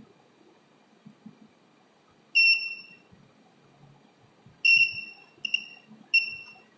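Small electronic buzzer sounding a high, steady beep four times as two wire ends are touched together to close its circuit: one beep about two seconds in, then three in quick succession near the end, the third one short. Each beep starts sharply and fades away.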